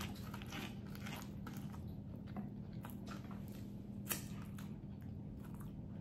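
Close-miked chewing of a crunchy fried taquito: irregular crunches and wet mouth clicks, with one sharper click about four seconds in, over a steady low hum.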